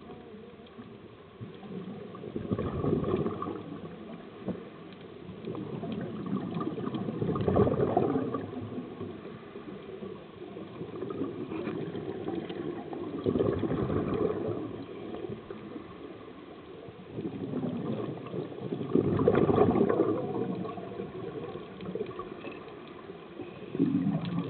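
Scuba divers' exhaled air bubbling out of their regulators underwater, the gurgling swelling in surges about every five or six seconds with each breath, over a steady background hiss of water.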